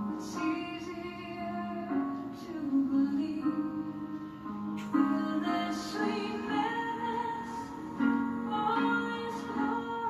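Music: a woman singing held notes over instrumental accompaniment.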